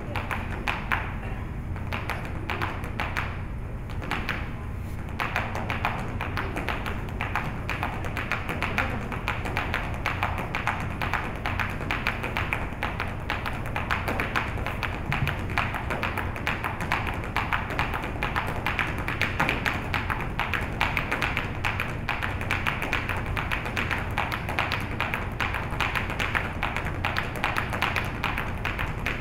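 Boleadoras whirled and struck against a wooden stage floor in a malambo boleadoras routine: fast, rhythmic tapping, sparse at first, then a near-continuous rapid rattle about five seconds in.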